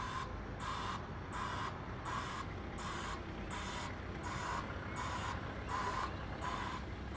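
Lorry reversing alarm bleeping steadily, about two bleeps a second, each a hissy, rasping bleep rather than a pure tone, with a low engine rumble underneath.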